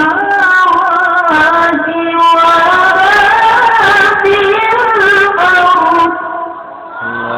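Qur'an recitation in the melodic tilawah style: a single reciter's voice holding one long, ornamented phrase that winds up and down in pitch and ends about six seconds in.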